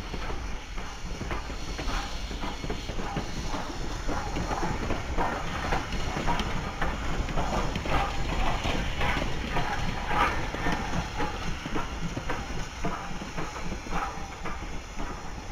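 Norfolk and Western No. 475, a 4-8-0 steam locomotive, running past close by with steam hissing over a low rumble. A busy, irregular stream of clanks and clicks comes from the running gear and the wheels on the rails, thickest in the middle.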